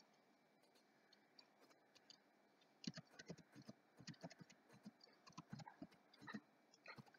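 Faint typing on a computer keyboard: a run of quick, irregular keystroke clicks beginning about three seconds in, after near silence.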